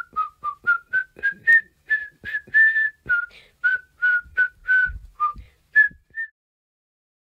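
A short tune whistled in quick separate notes, each starting with a slight click, ending about six seconds in.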